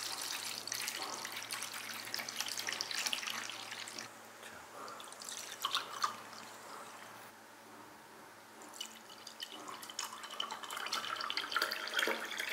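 Makgeolli poured in a thick stream into a small brass bowl and a ceramic cup, the liquid splashing and trickling. The pouring is loudest over the first few seconds and again near the end, quieter in between, with a couple of sharp splashes in the middle.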